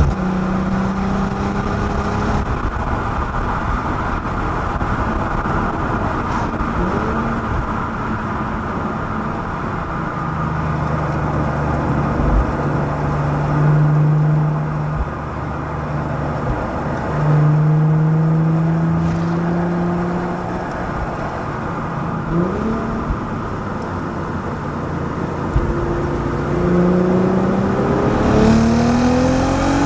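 Exhaust of a Volkswagen Passat B6's 3.2 FSI VR6, with the front resonators deleted and an OEM R36 cat-back fitted, picked up by a microphone mounted outside the car while driving. The engine note steps and glides up and down in pitch, with brief quick rises twice and a climb under acceleration near the end.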